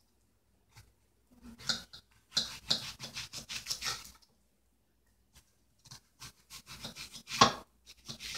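Red onions being peeled and handled by hand over a plastic bowl: dry crackling and rustling of the papery skins in two spells, one starting about a second in and another from about six seconds.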